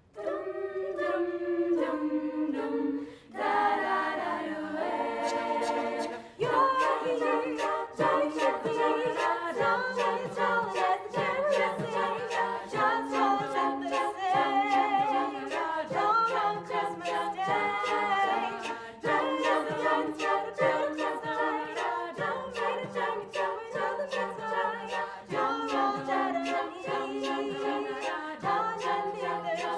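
A cappella vocal group singing a pop Christmas song, several voices in harmony over a steady beat of vocal percussion.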